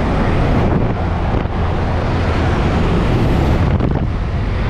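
Engine and propeller of a jump plane droning steadily, with wind rushing in through the open door and buffeting the microphone.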